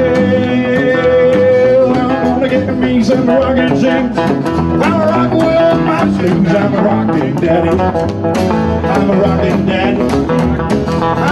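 Live rockabilly band: a man singing over a strummed acoustic guitar and a second guitar, with a long held note in the first two seconds.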